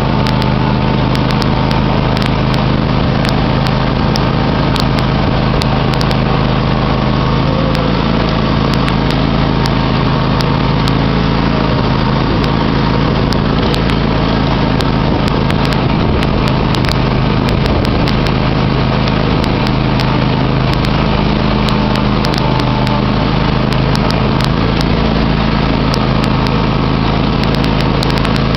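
John Deere X500 lawn tractor's 25 HP engine running steadily at an even speed while the tractor drives along.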